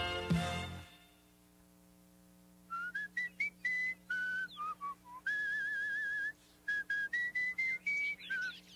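The closing bars of theme music die away in the first second, then a person whistles a cheerful tune: a run of short notes, one long wavering note in the middle, and more short notes near the end.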